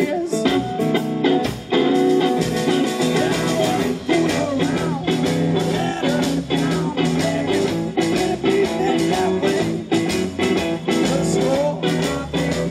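Live blues-rock band playing: two electric guitars, double bass and drum kit, with a steady drum beat.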